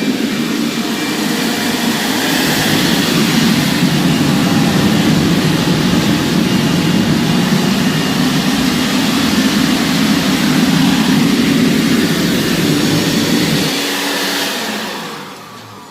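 Leaf blower forcing air into a homemade propane forge's burner, running on high: a loud, steady rush of blower air and burning gas. About 14 s in the low part cuts out and the noise dies away as the forge is shut down.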